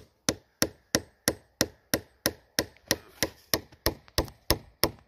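Hammer tapping a metal maple sap spile into a drilled hole in a tree trunk, steady sharp blows about three a second.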